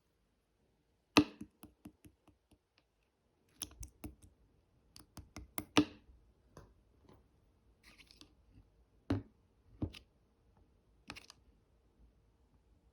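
Irregular sharp clicks and taps, some in quick clusters, the loudest about a second in, over a faint steady hum.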